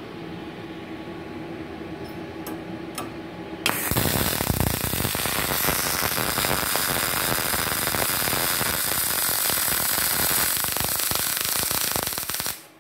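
MIG welding arc on thin plate with argon shielding gas, at about 75 A and 18.5 V: a loud, dense crackling hiss that starts about four seconds in and stops suddenly near the end. Before the arc strikes there is only a low hum and a few sharp clicks.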